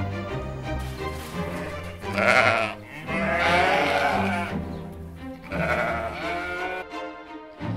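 Sheep bleating, three calls starting about two seconds in, over background music.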